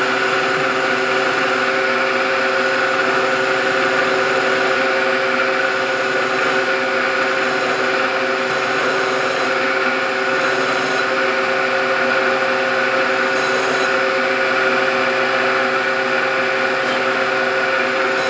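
Milling machine spindle running at a constant speed with a steady whine of several even tones, drilling a starter hole with a center drill.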